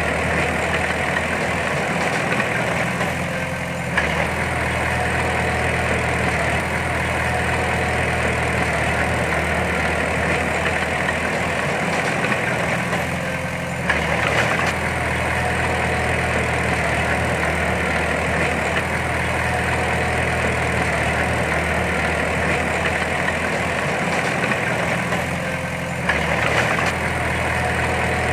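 Heavy diesel engine of an earthmoving machine running steadily under load with a clattering rattle. The engine eases off three times, about ten seconds apart, and each dip ends in a sharp knock.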